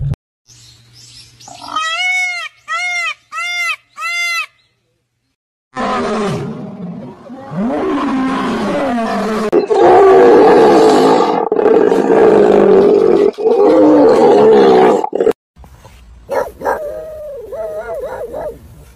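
A series of animal calls: four short rising-and-falling calls in quick succession, then after a pause a long, loud stretch of many overlapping cries, and a shorter wavering call near the end.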